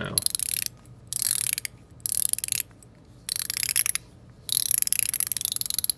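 Haptic fidget coin turned in five quick runs, each a rapid string of fine ratcheting clicks with short pauses between, the last run the longest.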